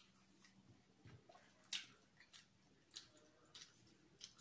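Faint mouth clicks and smacks of someone chewing fried chicken: a few short, irregular ticks half a second to a second apart, the loudest a little under two seconds in.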